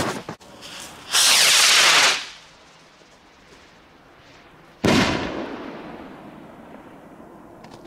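A rocket firework launching with a loud hissing whoosh of about a second, then a single loud bang about three seconds later as it bursts, echoing away over a few seconds.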